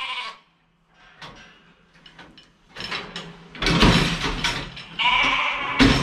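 Shetland sheep bleating, with one long bleat near the end. A loud clatter of knocks comes about four seconds in.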